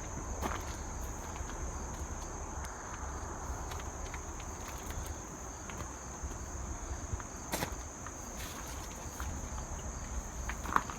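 Steady high-pitched insect trill over a low rumble, with a few sharp clicks, the clearest about seven and a half seconds in and just before the end.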